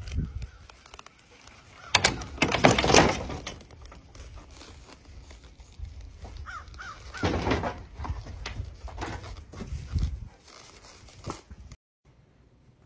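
American crow cawing several times at uneven intervals.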